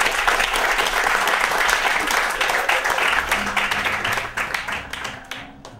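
Theatre audience applauding, a dense patter of clapping that fades away near the end.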